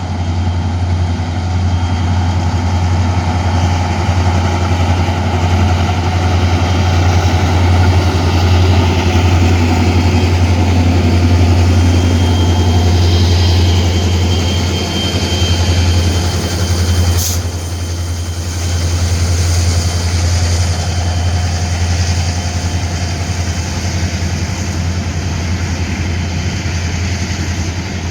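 Diesel locomotive engine running steadily with a deep low hum, with a single sharp click about seventeen seconds in.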